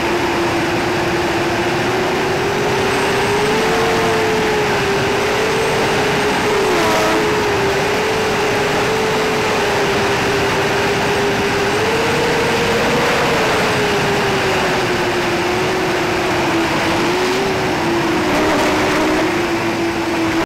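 Hubsan H501SS quadcopter's brushless motors and propellers running in flight, heard from a camera on the drone itself: a steady whine whose pitch wavers up and down with throttle, over a rush of air noise.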